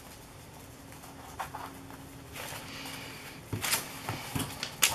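Paper napkins being handled and shuffled on a table: soft rustling and sliding, with a few sharper crinkles and taps in the last second or so.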